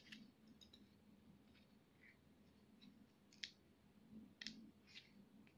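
Scissors snipping at a tape-sealed paper envelope: a few faint, sharp clicks and snips spaced irregularly, with quiet between them.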